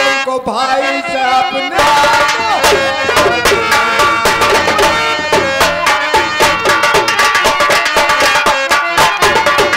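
Live folk-stage music: a sung phrase at the start, then from about two seconds in rapid, steady drumming on hand and kettle drums under a sustained melody line.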